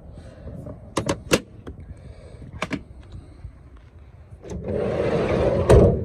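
Plastic tool-case drawers and latches clicking shut, then a vehicle's sliding door rolled along its track and slammed with a thud near the end.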